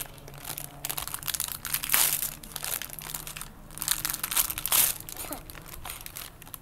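Tissue paper being crumpled and pulled open by hand, crinkling in irregular bursts, loudest about two seconds in and again near five seconds.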